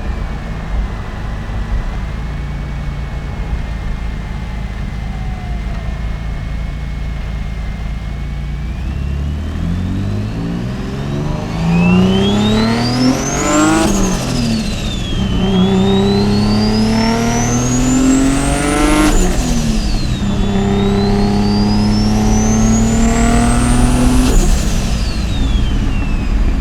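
Mitsubishi 3000GT VR4's turbocharged 3.0-litre V6 running at low, steady revs, then accelerating hard from about ten seconds in. The revs climb and drop at an upshift three times in a row, with a high whine rising and falling with the revs.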